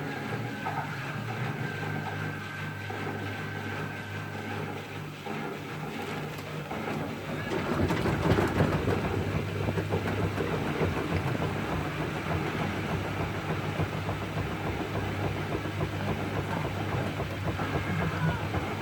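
Siemens Extraklasse F1300A washing machine running, a steady low motor hum with drum noise that grows louder and busier about eight seconds in.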